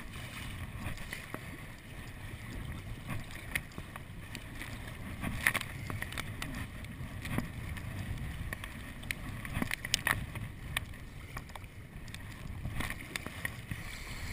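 Kayak paddle strokes splashing and choppy waves slapping against the hull, with sharp splashes every second or two over a steady low rumble of wind on the microphone.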